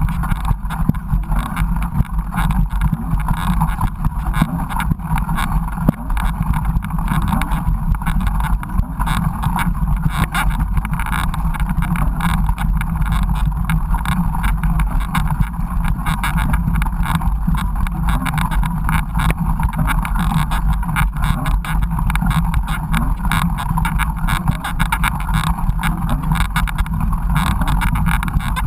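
Mountain bike rattling and clattering over a rough dirt trail, with a steady low rumble of wind buffeting the action-camera microphone.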